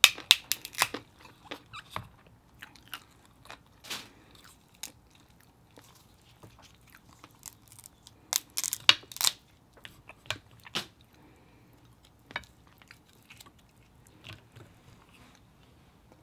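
King crab leg shell cracking and snapping as it is broken apart by hand, with a cluster of sharp cracks in the first second and another about eight to nine seconds in, and scattered clicks and close-up chewing in between.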